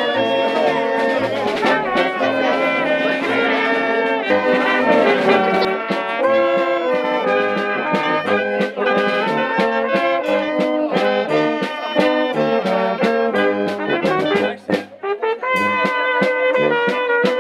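Brass band playing a lively folk tune, trumpets and trombones over a regular oom-pah bass beat; the music breaks off briefly near the end and then picks up again.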